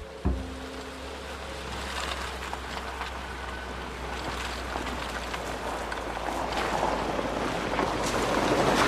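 A car running, heard as a steady rushing noise over a low hum that grows louder in the last few seconds, with a low thump just after the start.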